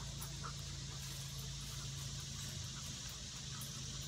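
Faint outdoor ambience: a steady low hum under a high, even insect hiss, with a few soft rustles.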